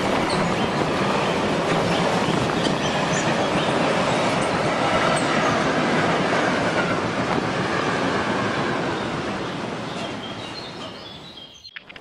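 Train sound effect: a railway train rolling past, wheels clicking over the rail joints with a steady rumble, fading away from about ten seconds in and cutting off sharply just before the end.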